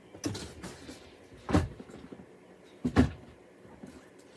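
Cardboard game boxes being handled as they are set down and pulled from a shipping carton. There are three knocks, a light one just after the start, then louder ones about a second and a half and three seconds in.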